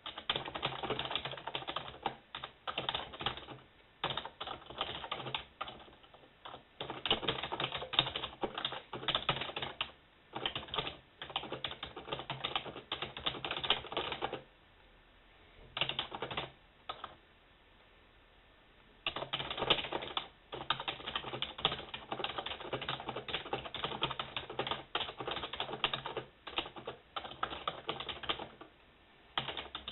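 Typing on a keyboard: fast runs of key clicks broken by short pauses, with a longer pause of about four seconds around the middle.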